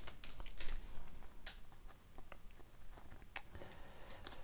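Trading cards being handled and slid through by hand, card against card: a few soft, scattered clicks and light rubbing.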